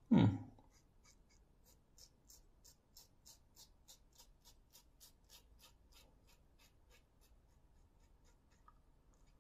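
Stainless steel double-edge safety razor scraping through lathered stubble in short, quick strokes, about three a second, fading out after the middle. A brief, louder low sound comes at the very start.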